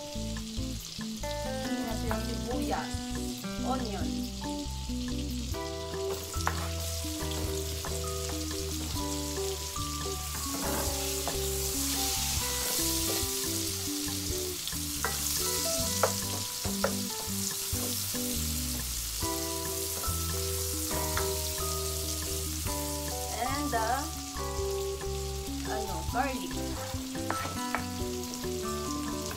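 Butter and oil sizzling in a nonstick pan as sliced onion fries, with a wooden spoon stirring; the sizzle grows louder about a third of the way in. Light background music plays underneath.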